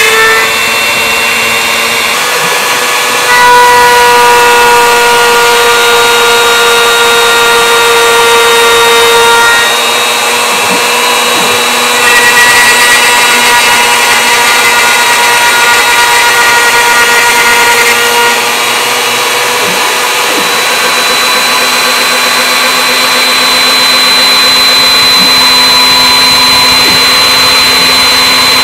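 A homemade CNC router machining a pine 2x2 with a 1/4-inch flat spiral bit. The router motor and machine make a loud, steady whine of several tones, which shift to new pitches every few seconds as the cut moves on.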